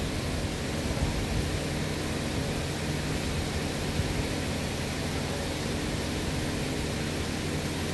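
Steady workshop background noise: an even rushing hiss over a low hum, with no distinct knocks or tool sounds.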